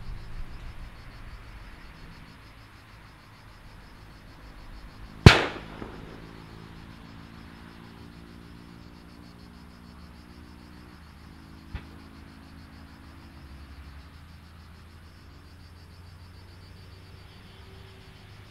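A faint, steady hum from a distant airliner's jet engines on final approach, with insects chirping. About five seconds in, a single sharp, very loud bang rings out and dies away within a second; a much fainter click follows some six seconds later.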